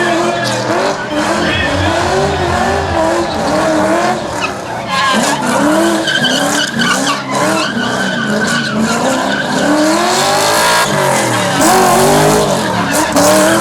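Holden Commodore's LS2 V8 drifting, revving up and falling back over and over, with tyres squealing and skidding.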